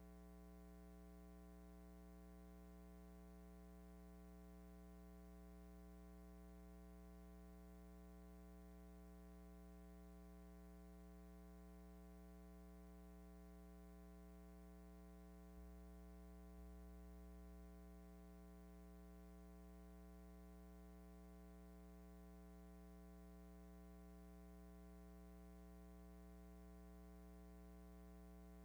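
Near silence: only a faint, steady electrical hum with many overtones on the empty soundtrack of a silent film.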